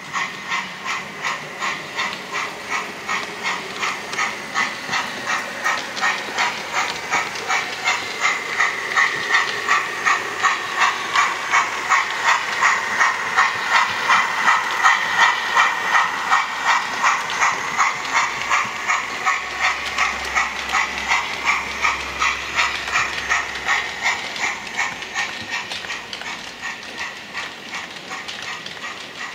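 Rhythmic steam-locomotive chuffing from a model BR Standard 9F 2-10-0 steam engine, about two to three chuffs a second. It grows louder toward the middle and fades near the end as the train passes.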